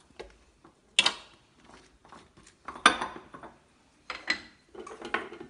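Spoon clanking and scraping against the inside of an aluminium pressure cooker holding chickpeas and spices. There are three sharp metallic knocks, about one, three and four seconds in, with lighter clicks between them.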